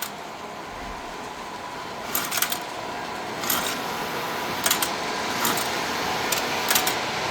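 Model trains running on a miniature layout: a steady running hum with a scattering of short, sharp clicks.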